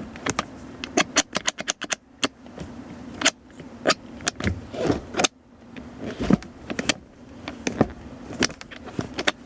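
Allen key clicking and clinking against the small set bolts and metal of a new shift knob as it is tightened onto a BMW E30's gear shifter, in quick irregular ticks with a short fast run about a second in and a heavier knock about six seconds in.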